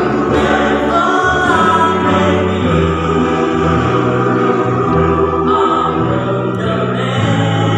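Men's choir singing unaccompanied in harmony, holding sustained chords that change every second or so, with deep bass notes under the upper voices.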